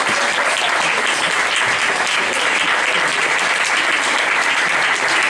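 Audience applauding, a steady, dense clapping from many hands.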